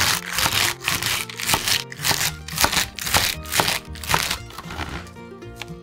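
Chef's knife chopping komatsuna stalks on a wooden cutting board, a quick run of crisp cuts about three or four a second that stops about four and a half seconds in. Background music plays underneath.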